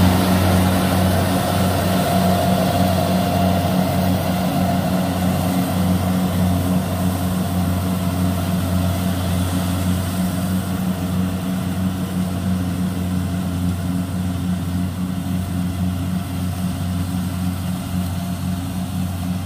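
Kubota DC-70 combine harvester's diesel engine running steadily under load, with a constant low hum that slowly gets quieter as the machine moves away.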